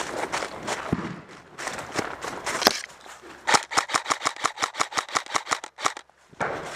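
Airsoft rifle firing on full auto: a burst of evenly spaced shots at about nine a second, lasting a little over two seconds and starting about halfway through. Scattered clicks and rustling come before it.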